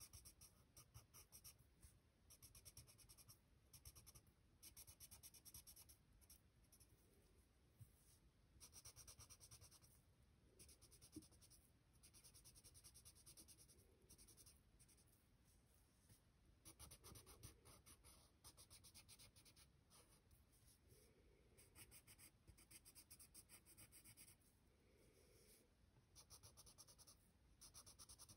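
Faint pencil scratching on paper: groups of quick back-and-forth shading strokes, each lasting a second or two, with short pauses between. One small sharp tick about eleven seconds in.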